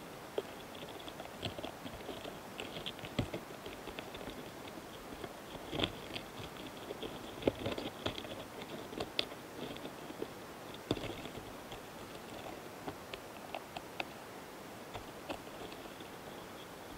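Close-miked karakane hanakamikiri flower longhorn beetles on a flower head during courtship: a dense, irregular run of tiny clicks and scratches, with a few sharper knocks, the loudest about seven and a half seconds in.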